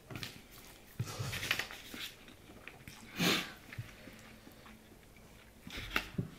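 Mouth sounds of someone eating very spicy instant noodles: chewing and short sharp breaths, with the loudest hissing breath about three seconds in.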